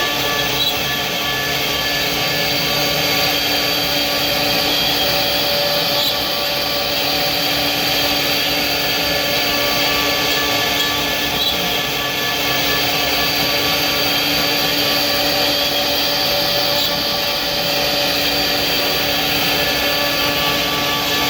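Electric woodworking power tool running steadily under load: a constant motor whine over a continuous hiss that does not change pitch.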